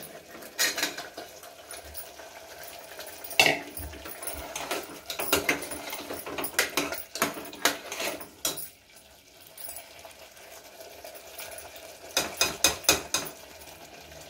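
Steel ladle stirring in an aluminium pressure cooker, clinking and scraping against the pot's sides as cubed potatoes are tipped in from a steel bowl. The clinks come in irregular clusters, with a quieter stretch a little after the middle and a quick run of clinks near the end.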